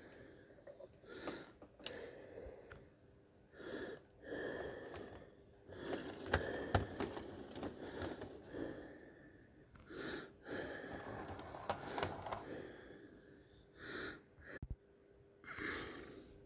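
Heavy breathing close to the microphone, in uneven swells every second or two, with a few sharp clicks.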